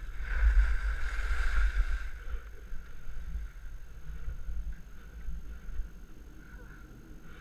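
Wind rumbling on an action camera's microphone during a ski run down a groomed piste, with the hiss of skis sliding and carving over packed snow. The sound is loudest in the first two seconds and eases off after.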